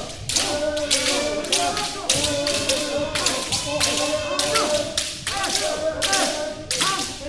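Many kendoka sparring at once: a rapid, uneven run of sharp cracks from bamboo shinai striking armour, over overlapping kiai shouts.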